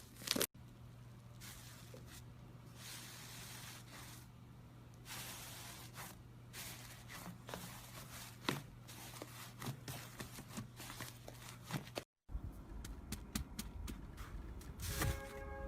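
Slime being squeezed and pressed close to the microphone: faint sticky crackles and scattered small pops over a low hiss. A short dropout comes about twelve seconds in, and the sound changes after it.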